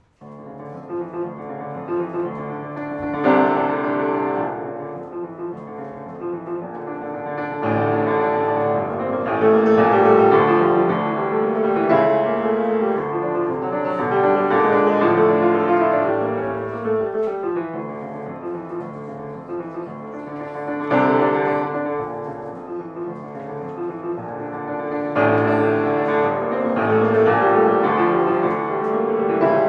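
Piano music starting abruptly just after the beginning and playing throughout, swelling louder about three seconds in, again from about eight seconds in, and near the end.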